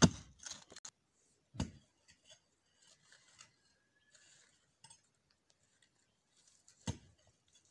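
Digging in hard, stony earth: three heavy thuds, the first the loudest, another about a second and a half later and one near the end, with soil crumbling and scraping in between.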